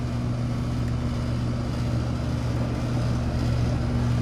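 Small 2-ton air-conditioning condensing unit running: a steady mechanical hum from the compressor and fan with a constant low electrical drone.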